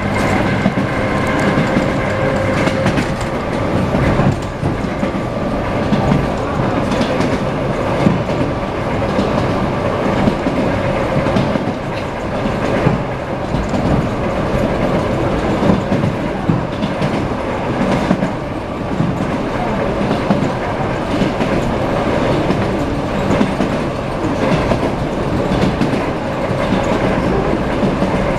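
Wheels of an ED9M electric multiple unit clattering over rail joints as the train runs, heard from inside the carriage over a steady rolling rumble.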